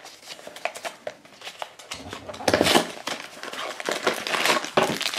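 Small cardboard blind box being torn open along its perforated flap and handled: scratchy tearing and crinkling in uneven bursts, loudest about two and a half seconds in.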